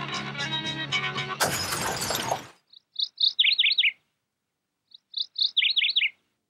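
A rock song ends in a short, noisy crash. Then a songbird sings two short phrases, each a few high chirps followed by a quick run of falling notes.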